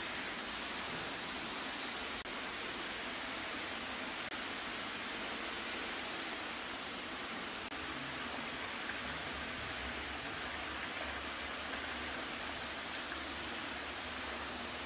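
Hot-spring water pouring steadily from a spout and splashing into an indoor bath, an even rushing noise.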